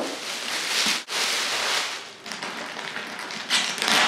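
Plastic bag and wrapping rustling and crinkling as a bag of aquarium pebbles is handled and pulled out. There is a brief pause about a second in and a louder burst of crinkling near the end.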